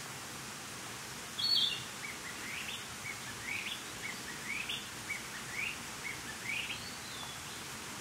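Male narcissus flycatcher singing: a loud high note about a second and a half in, then a run of short phrases, each a low note sweeping sharply upward, repeated about twice a second and ending with a high drawn-out note.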